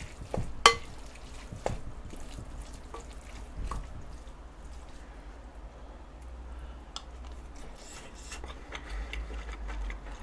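Rice being mixed into spicy braised short-rib sauce in a bowl: soft wet stirring and squishing, with a utensil clicking sharply against the bowl once under a second in and a few lighter taps over the next few seconds.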